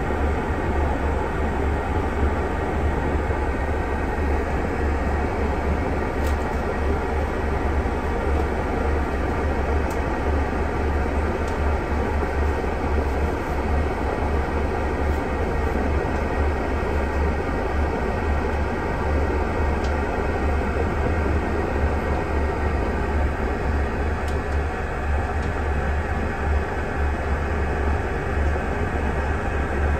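Steady low rumble of a double-decker bus heard from inside on the upper deck as it travels slowly along the road: engine drone with road noise.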